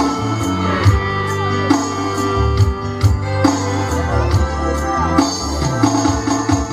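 Electronic keyboard playing an instrumental passage: sustained organ-like chords over a pulsing bass line and a steady drum-machine beat.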